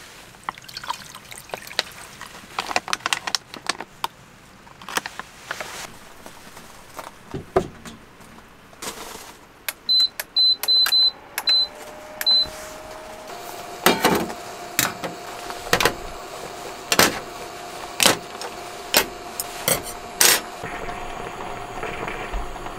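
Scattered clicks and rustles of food being handled, then five short high beeps as a portable induction cooktop's button is pressed. After the beeps the cooktop's hum comes up, rising and settling into a steady tone, with sharp ticks about once a second.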